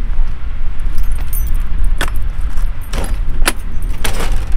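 Keys jangling and a lock clicking several times as the camper's back door is unlocked and pulled open, over a steady low rumble.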